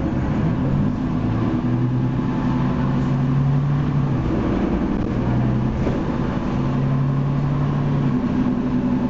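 Leyland Lynx Mk2 bus, with a Cummins L10 diesel and ZF Ecomat automatic gearbox, running under way as heard from inside the passenger saloon. The engine note steps up and down in pitch a few times.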